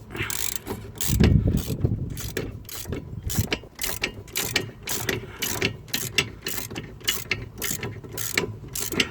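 Hand ratchet wrench clicking in a steady rhythm, about three clicks a second, as a bolt that has been broken loose is turned out; a low thump about a second in.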